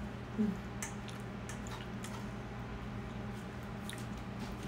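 A person eating caramel apple dessert from a spoon: faint chewing and mouth sounds with a few soft spoon clicks, and a short murmur about half a second in, over a low steady hum.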